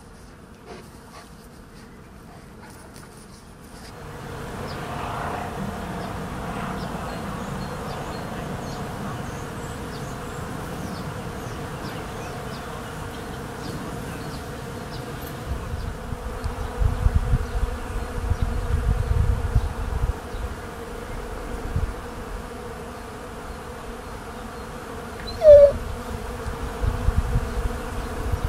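Bees buzzing around cherry blossoms, a steady hum that grows louder about four seconds in. Low rumbling noise comes and goes in the second half, and one brief, louder rising note sounds near the end.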